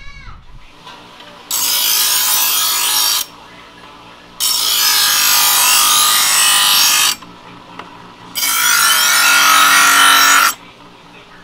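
A kitchen knife drawn three times through an EverSharp electric knife sharpener. Each pass is a loud grinding rasp of about two seconds as the blade meets the spinning abrasive wheels, and the sharpener's motor hums quietly between passes.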